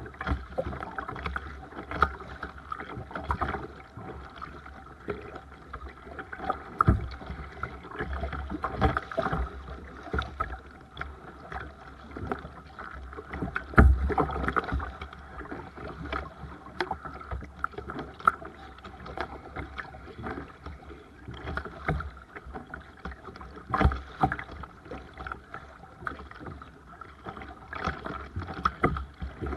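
Seabird Discovery sea kayak being paddled: paddle strokes splashing and water sloshing against the hull, with short splashes and knocks at irregular intervals over a steady low rumble.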